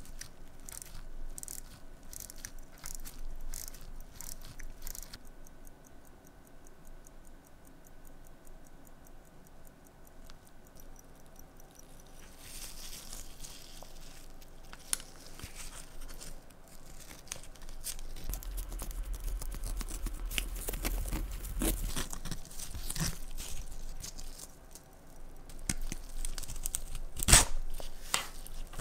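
Handling noise of a worn fabric watch strap being worked free of an old wristwatch: scattered small clicks and taps at first, then scraping and rustling as the strap is dragged out from under the case, with a sharp knock near the end.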